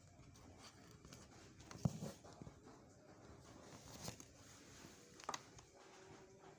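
Faint handling noise as a small fan capacitor with wire leads is moved about and set down on a wooden table: three soft knocks, the first, about two seconds in, the loudest.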